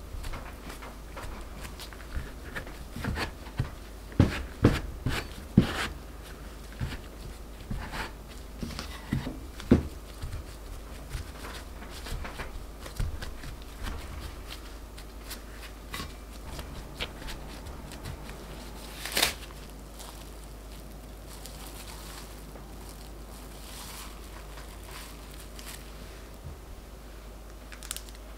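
Stainless steel bench scrapers knocking and scraping on a silicone baking mat while crumbly scone dough is gathered and pressed into a block, with soft pats from gloved hands on the dough. Irregular sharp knocks, several loud ones close together about four to six seconds in, another near ten seconds and one near nineteen; the handling grows sparse and soft after that.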